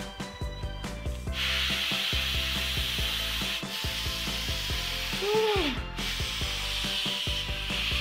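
Helium hissing steadily from a pink helium tank's nozzle into a large foil clownfish balloon as it inflates, starting about a second in.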